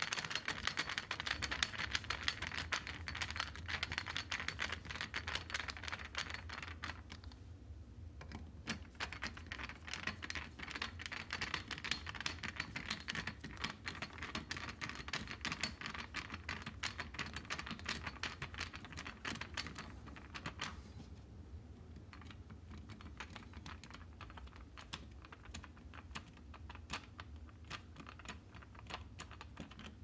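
Screwdriver turning the retaining screws of a wall outlet: a dense run of small, quick clicks and scrapes of metal on metal, fainter in the last third.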